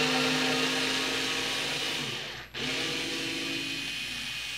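Multilaser Home H0063 4.8 V cordless screwdriver running in reverse, its small motor and gearbox whining as it backs a screw out of a wooden block. The whine breaks off briefly about halfway through, then starts again.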